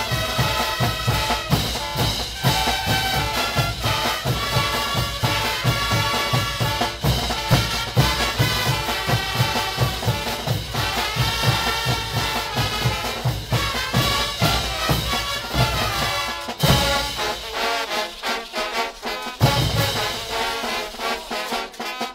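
Brass band music for caporales dancing: trumpets and trombones over a steady drum beat. Near the end the bass beat drops out for a couple of seconds, then returns.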